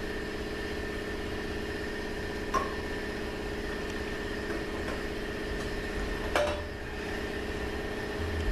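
Metal transmission parts clinking twice, about two and a half seconds in and again about six seconds in, as a drum and hub are worked out of a Ford AOD automatic transmission case. A steady machine hum runs underneath.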